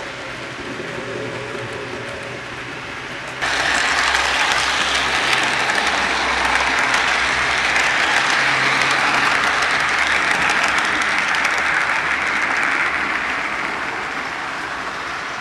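HO scale model train cars rolling along the track: a steady rushing clatter of metal wheels on rails with rapid fine clicks. It jumps much louder about three seconds in as the cars pass close by, and eases off near the end as they move away.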